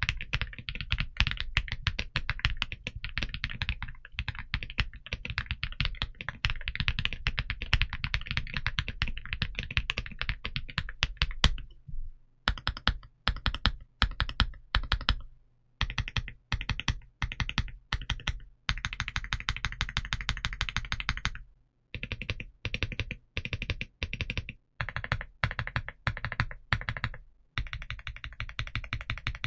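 XVX M75 Lumina Core Ice Pro mechanical keyboard being typed on: a continuous run of fast keystrokes for about the first twelve seconds, then short bursts of keystrokes broken by brief silences.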